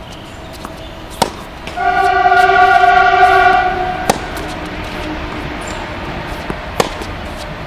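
Tennis balls struck by rackets in a baseline rally, three sharp hits about a second, four seconds and nearly seven seconds in, with fainter ball bounces. From about two seconds in, a loud steady horn blast holds for about two seconds and fades, louder than the hits.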